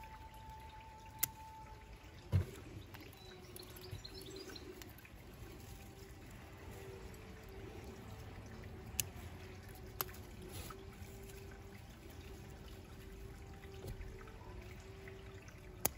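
Bonsai scissors snipping shoots off a Chinese elm: a handful of short, sharp snips spread out, with quiet handling of the foliage between them.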